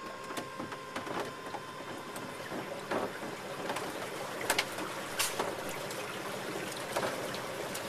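Water rushing and splashing against the hull of a small electric boat under way, with irregular sharp slaps.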